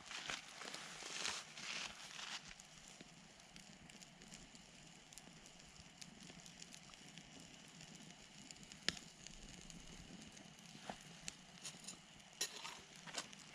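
Wood campfire crackling, with scattered sharp pops, the loudest about nine seconds in and a few more near the end. A soft rustle in the first couple of seconds.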